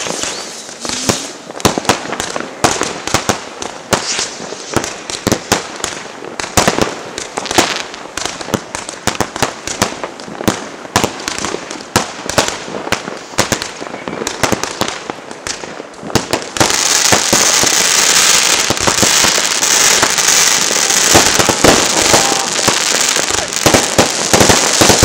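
Fireworks and firecrackers going off: a continuous stream of sharp bangs and crackles. About two-thirds of the way through it suddenly gets louder and turns into a dense, hissing crackle.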